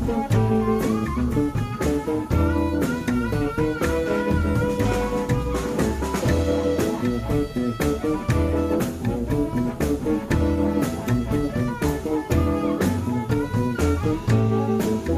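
Live blues band playing: a harmonica played into a vocal microphone over an upright double bass, acoustic guitar and drum kit.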